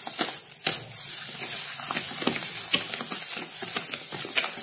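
A spoon stirring mashed ripe banana and sugar in a bowl, with irregular clicks and scrapes as it knocks against the bowl.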